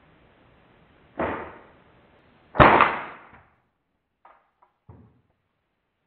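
Two sharp shots from a Hammerli Pneuma .22 pre-charged air rifle about a second and a half apart, the second louder with a longer ringing tail. A few light clicks follow as the struck die-cast toy car lands.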